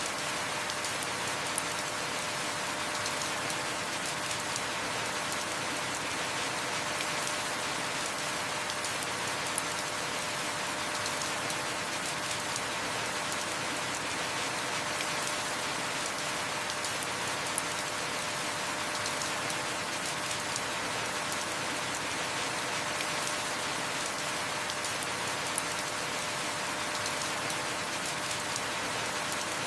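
Heavy rain falling steadily, an even hiss of drops. A brief sharp tick stands out about every eight seconds.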